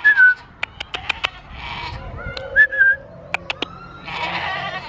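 Goats bleating, with two short, high whistle-like notes and two quick runs of sharp clicks between the calls.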